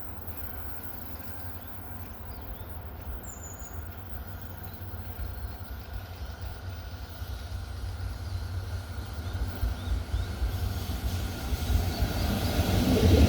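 Train hauled by JR EF64 electric locomotives approaching, its running sound growing steadily louder toward the end.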